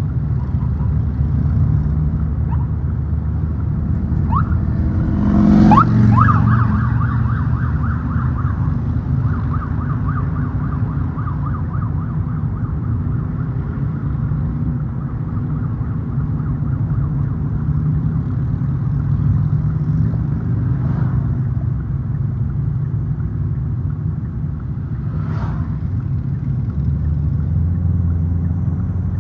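A police motorcycle's siren sweeps up in pitch about five seconds in, is loudest a moment later, then warbles rapidly for several seconds before fading, over the steady rumble of the moving vehicle.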